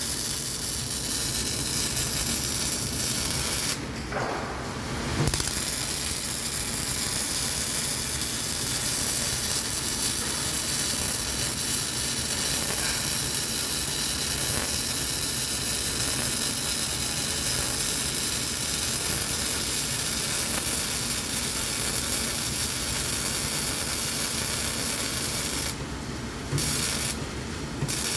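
Electric welding arc burning steadily with a continuous hiss while a large fillet weld is laid. The arc breaks off briefly about four seconds in and again for about two seconds near the end.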